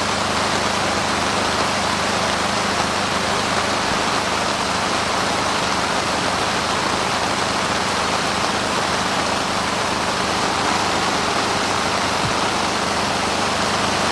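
Heavy rain pouring down in a steady, unbroken rush, with a faint steady low hum underneath.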